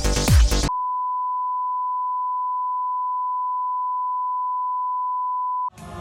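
A steady 1 kHz test tone, the reference tone that goes with colour bars, held for about five seconds. Electronic music cuts off under a second in, and music starts again near the end.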